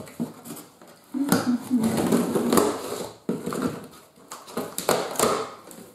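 Kitchen knife slitting the packing tape on a cardboard box: scraping and tearing of tape and cardboard in two long strokes, the first starting about a second in and the second just after three seconds in.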